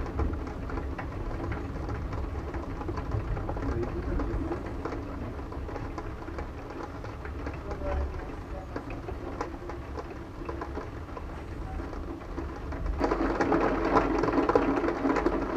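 Thunderstorm ambience: rain falling over a steady low rumble, growing louder about thirteen seconds in.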